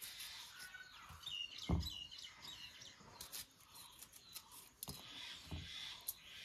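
Small birds chirping, a quick run of short repeated chirps between about one and two and a half seconds in, over a few light clicks of a knife slicing chillies in the hand over a wok. A dull thump about two seconds in is the loudest sound.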